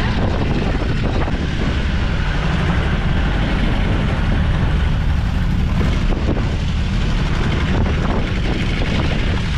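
A wooden passenger boat's engine running steadily under way, a constant low drone, with wind and water noise over it as the boat crosses choppy sea.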